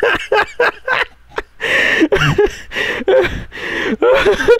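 A man laughing hard in uncontrolled fits, short bursts of laughter broken by breathy gasps.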